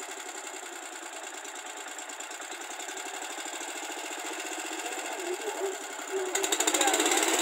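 Swaraj Code compact tractor's small engine running steadily with a fast, even pulse, then revving up sharply louder about six seconds in.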